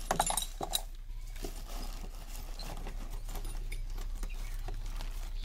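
Metal spanners and Allen keys from a power weeder's tool kit clinking and knocking together as they are handled. A few sharper clicks come in the first second, with lighter scattered taps after.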